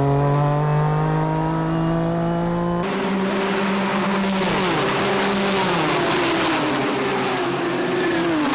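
GT race car engines running at racing speed on track. At first one steady engine note climbs slowly in pitch. About three seconds in, the sound changes abruptly to a noisier mix, where the engine note drops and climbs again several times as the cars shift and pass.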